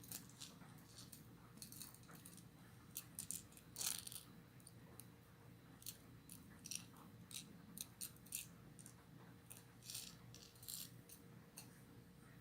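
Faint, irregular clicks and light rattles of small hard objects knocking together, a tick or two a second, such as hard plastic fishing lures and their metal hooks being handled. A faint steady hum lies underneath.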